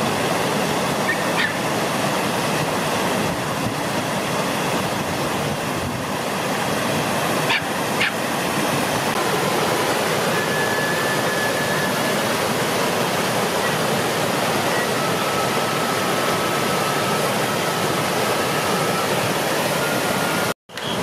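Water rushing steadily over a low stone weir in a river.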